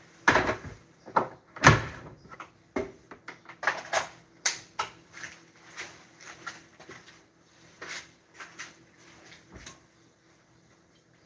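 Knocks, clatters and thuds of things being handled and set down in a kitchen, with the two loudest thuds in the first two seconds, dying down near the end.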